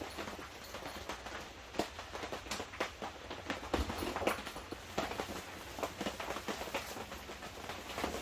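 Irregular light taps and rustles: footsteps on wet, leaf-strewn ground, with slow rain dripping onto the canvas wall tent.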